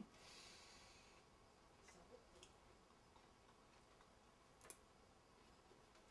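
Near silence: quiet room tone with a few faint, short clicks, the clearest one near the five-second mark.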